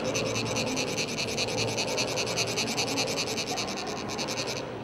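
A chakpu, the ridged metal funnel used for sand mandalas, rasped with a metal rod in rapid, even strokes, which makes it vibrate and trickle fine coloured sand. The rasping stops a little before the end.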